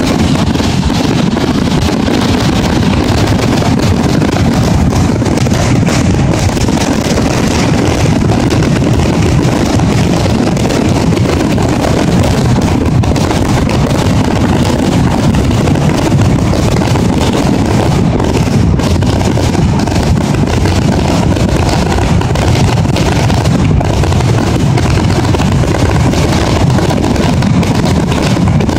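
Fireworks finale: a dense barrage of overlapping shell bursts merging into one continuous loud rumble.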